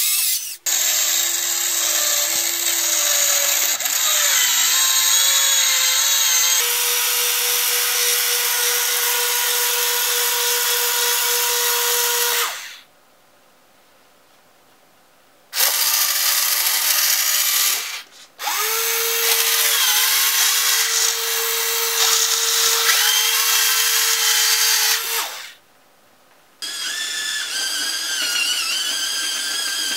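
Servo motors of a radio-controlled Bruder Cat excavator conversion (TowerPro MG995 servos) whining as they move the machine, the pitch shifting as the load changes. The whine cuts out twice, once for about three seconds and once for about a second.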